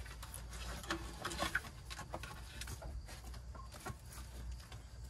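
Metal shovel scraping and chopping into caked-up dirt and droppings on a chicken coop floor: a series of short, irregular scrapes and knocks.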